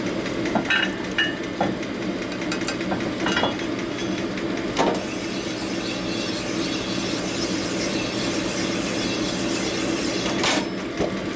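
A hone running in the main bearing bore of a Harley Evolution crankcase: a steady machine hum with scattered clicks and a few short squeaks early on. The stones are cutting the bore to take out its taper and bring it round.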